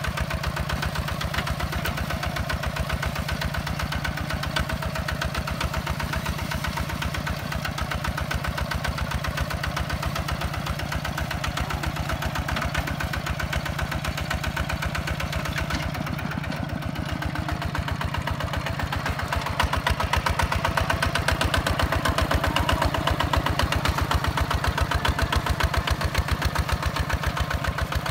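Single-cylinder diesel engine of a Hinota HG Gold 155 DI two-wheel walking tractor running steadily under load as it pulls a plough through dry soil, with an even, rapid chugging. It gets louder about twenty seconds in.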